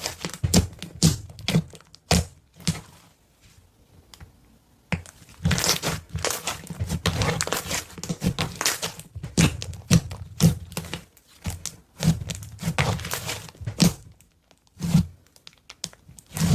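Hands squishing and poking slime: bursts of crackling pops and soft squelchy thuds, with short pauses between.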